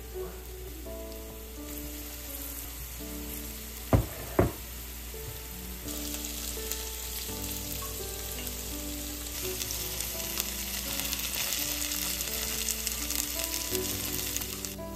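Carrot sticks shallow-frying in oil in a nonstick frying pan: a steady sizzle that grows louder about six seconds in. Two sharp knocks a little before that are the loudest sounds.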